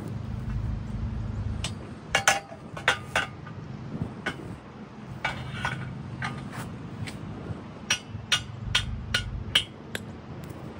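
Aluminium rails of an IntegraRack IR30 solar ground-mount rack clinking and knocking against each other and the frame as a rail is handled and set in place, about a dozen sharp ringing knocks at uneven intervals.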